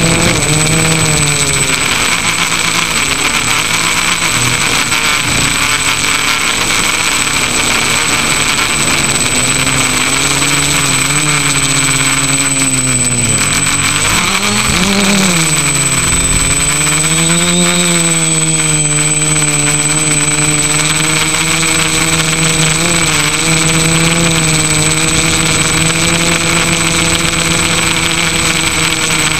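FPV drone's motors and propellers buzzing, recorded by the camera on board, the pitch rising and falling with the throttle. About halfway through, the pitch drops sharply and then swells back up.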